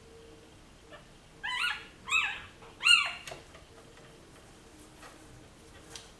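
Newborn Schipperke puppy squealing: three short, high cries in quick succession about a second and a half in, each rising and then falling in pitch.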